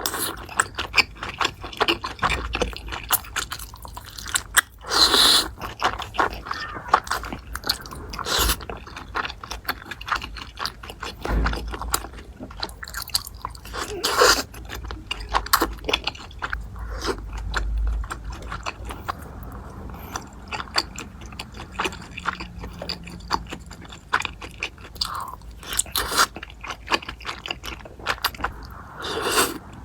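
Close-up eating sounds: a person chewing and biting food, with dense irregular crunching and crackling and a few louder bursts now and then.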